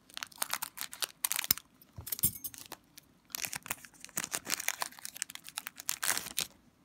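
Wrapper of an Upper Deck Portfolio hockey card pack crinkling and crackling in irregular bursts as the pack is opened and the cards are pulled out.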